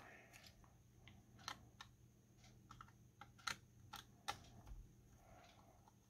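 Faint, irregular small clicks and taps of plastic and metal as the battery cable connector of a Dell Inspiron 5570 laptop is worked loose from the motherboard by hand.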